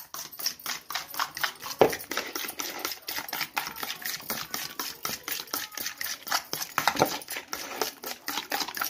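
Fork beating raw eggs in a bowl: rapid, regular clicks of the tines striking the bowl.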